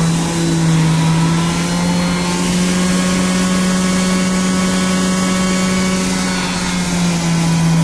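A motor running steadily, a loud constant hum that holds one pitch without revving up or down.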